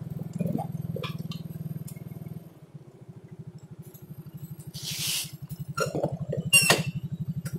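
Small motor scooter engine idling with an even low pulsing, then cutting off near the end. A short hiss about five seconds in and a sharp click a little later.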